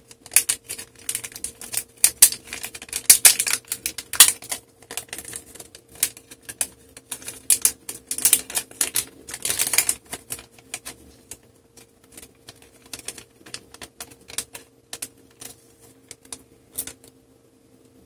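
Metallised anti-static bag crinkling and crackling as it is unsealed and opened and a replacement laptop RAM module is taken out. It comes in irregular bursts of crackle, heaviest in the first half, and stops about a second before the end.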